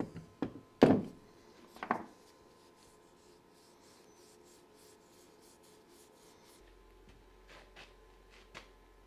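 A few knocks in the first two seconds as the can and the wooden handle are handled on the workbench. Then a cloth faintly rubs finish onto the wooden wrench handle. A few light clicks come near the end.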